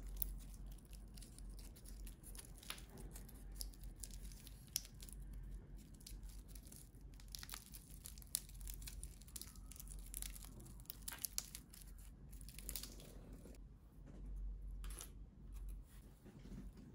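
Protective plastic film being peeled off a watch's steel bracelet and clasp, with faint irregular crinkling and tearing crackles.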